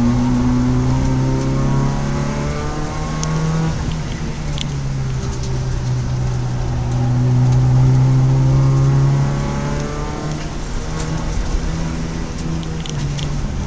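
Citroën Saxo track car's engine heard from inside its stripped-out cabin while driving at speed, the revs climbing and dropping back several times as it accelerates and changes gear.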